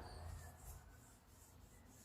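Near silence, with faint light rubbing strokes on the beech wood of a hand-shaped staff, about three a second.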